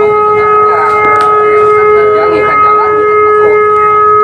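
A ship's horn sounding one long, loud, steady blast on a single note, the kind a ferry gives as a signal of leaving its berth.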